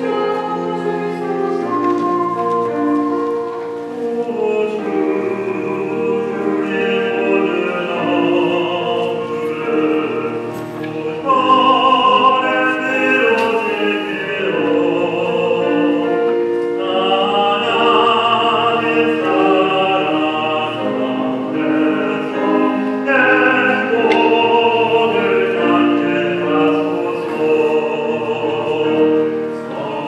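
A woman and a man singing a slow, classical-style duet with piano accompaniment.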